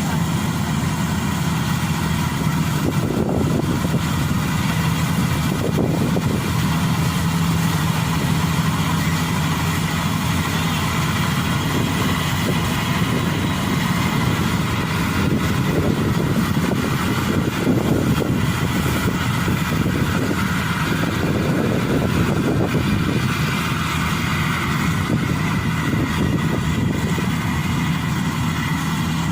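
Rice combine harvester running steadily in a paddy field: an even engine hum with machinery noise.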